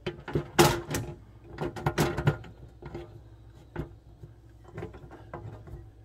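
Sharp plastic clicks and knocks as a dishwasher's mesh filter and its plastic housing are pressed and fitted into the sump by hand. The loudest come in the first two and a half seconds, with lighter taps after.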